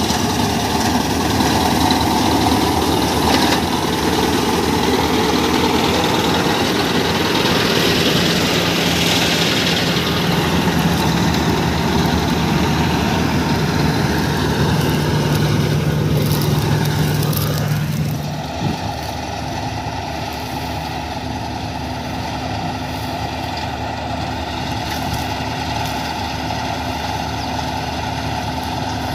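Kartar 4000 combine harvester running as it cuts wheat, its engine and cutting and threshing machinery heard up close as a dense, loud mechanical noise. A little past halfway the sound drops suddenly and turns steadier and quieter, as the machine is heard from farther off.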